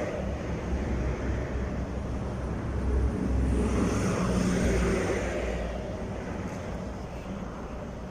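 A motor vehicle passing on the road: its rushing noise swells a few seconds in and then fades away, over a low steady engine rumble.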